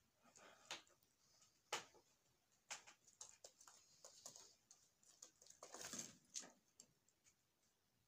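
Faint, irregular taps and scratches of doves moving about a seed-strewn cage floor, with a short scuffling rustle about six seconds in.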